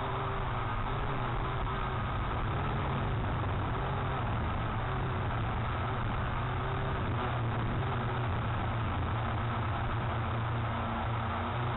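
Strong wind buffeting the microphone, a steady low rumble, with a faint hum that comes and goes.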